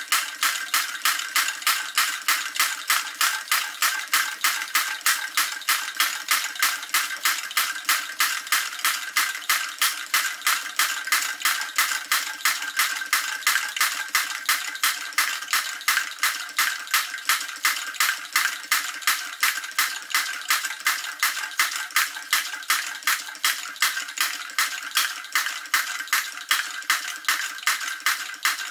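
Tarot Stirling engine running a belt-driven Wilesco toy drop hammer, a steady metallic clacking about three times a second. The engine is coasting on stored heat with its burner blown out.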